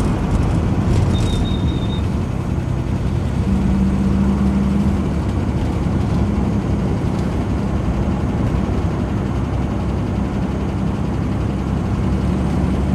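A 1967 Alvis TF21's straight-six engine running steadily while the car is driven, heard from inside the cabin with road noise. A brief faint high tone sounds about a second in.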